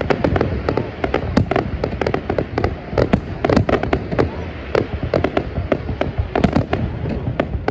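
Fireworks display: aerial shells bursting in a dense run of sharp bangs and crackles, several a second, over a steady low rumble.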